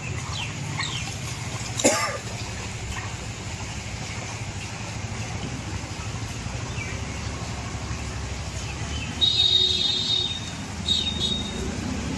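Street sounds on a flooded road: a steady low engine hum of two-wheelers moving through the water, with a sharp short sound about two seconds in and high chirps or squeaks twice near the end.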